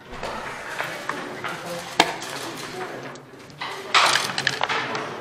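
Backgammon checkers and dice clacking on the board: one sharp clack about two seconds in, then a quick clatter about four seconds in, over low voices in the background.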